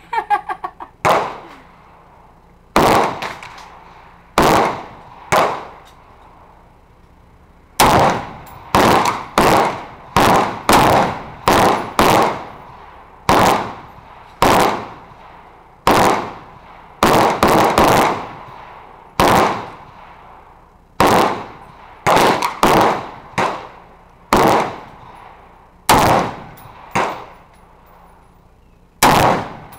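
Semi-automatic fire from a Smith & Wesson M&P 15 Sport AR-15 rifle in 5.56/.223: about thirty single shots at an uneven pace, some in quick runs a third of a second apart and some with pauses of two seconds or more. Each shot rings briefly after the crack.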